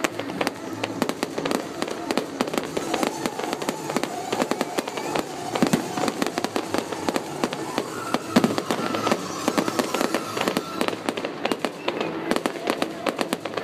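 Fireworks display going off: a dense, continuous run of crackling pops and bangs, with a few heavier bangs standing out about six and eight seconds in.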